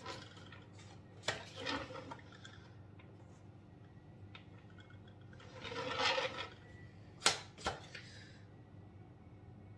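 A flexible plastic cake stencil being handled at the cake: two short rustling swishes and a few light clicks and taps, the loudest a sharp click about seven seconds in.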